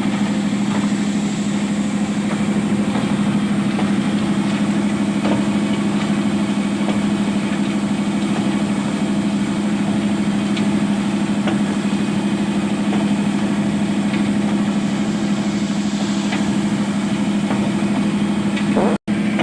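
Excavator diesel engine running at a steady, constant hum, with occasional faint clicks over it.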